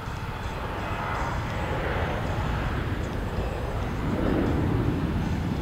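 Bombardier Dash 8 Q400 turboprop airliner on final approach: the steady drone of its two Pratt & Whitney PW150A engines and propellers, growing louder as it nears.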